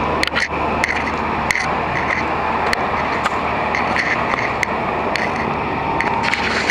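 Strong dust-storm wind rushing over the microphone in a steady roar, with scattered clicks and scrapes.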